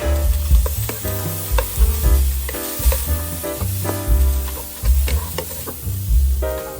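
Food sizzling as it fries in a pan, with a utensil stirring it.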